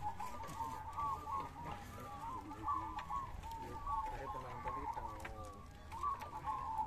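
Chorus of many caged zebra doves (perkutut) cooing at once, their short, overlapping coos repeating without pause.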